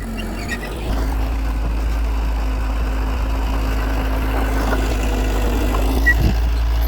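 Diesel engine of heavy earthmoving machinery running steadily with a deep hum, getting louder about a second in.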